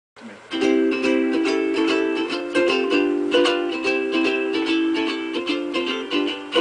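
Cigar box ukulele playing the instrumental blues intro to a song, a steady rhythm of plucked chords that starts a fraction of a second in.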